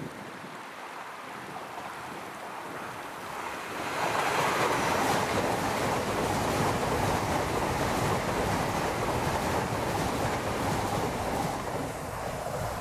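A Class 800 Azuma bi-mode train runs past on diesel power. A steady rush of wheels on rail and engine noise swells about three and a half seconds in, holds loud for most of the pass, and fades near the end as the train goes by.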